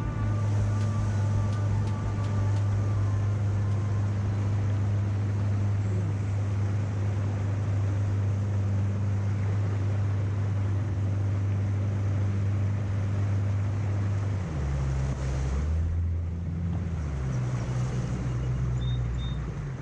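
Boat motor running steadily, with wind and water noise over it; the motor's low note changes about fourteen seconds in.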